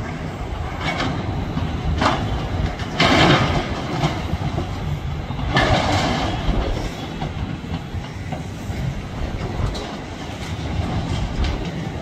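Excavators demolishing a large building: a steady low machine rumble with several loud crashing, clattering bursts, the strongest about three seconds in and again near six seconds in.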